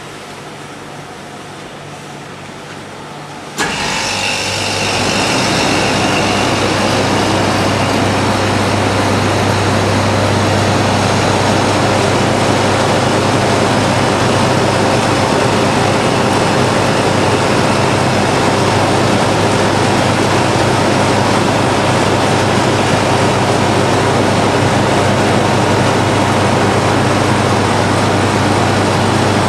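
Twin-screw extruder and pelletizer line running: a steady, loud machine noise with a low hum, which jumps suddenly louder about three and a half seconds in and then holds even.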